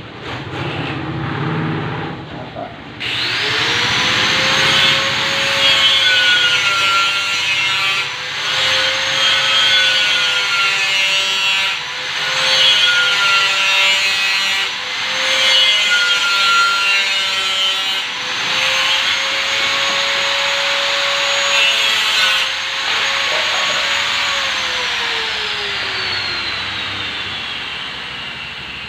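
A handheld electric power tool starts about three seconds in and spins up to a high whine. It dips in pitch several times as it bites into the work, with a harsh grinding noise each time. Near the end it is released and the whine slowly winds down.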